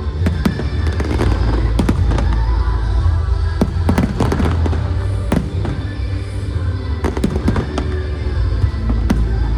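Aerial fireworks bursting in quick irregular succession, many sharp cracks and bangs over a continuous low rumble, with music playing underneath.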